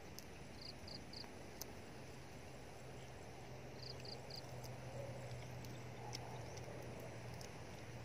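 Faint outdoor ambience with short high chirps in two quick groups of three, about a second in and again about four seconds in. A steady low hum sets in about two seconds in.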